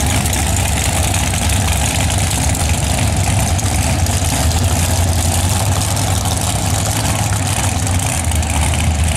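First-generation Chevrolet Corvette engine idling steadily at the drag strip starting line, a low, even rumble.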